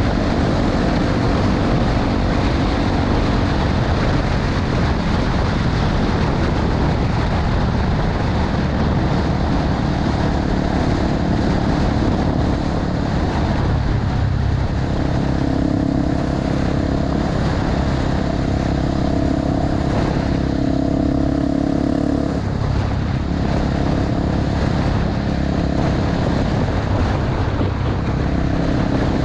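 Honda XR250 Tornado's single-cylinder four-stroke engine running at a steady cruise, under heavy wind and road noise. Its note gets a little higher and stronger for several seconds from about halfway through, then settles back.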